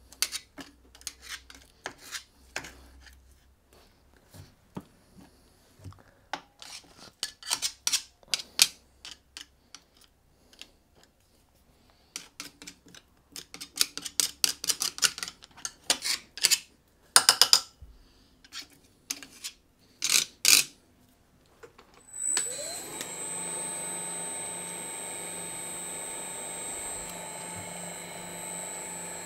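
Tools clicking and scraping against the shredder's metal cutters as sticky goo is picked off, in short irregular bursts. About 22 seconds in, the shredder's electric motor starts, rising in pitch, then runs steadily with a high whine.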